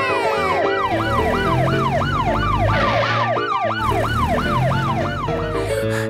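Police car siren in a fast yelp, its pitch rising and falling about three times a second, stopping near the end, with music underneath.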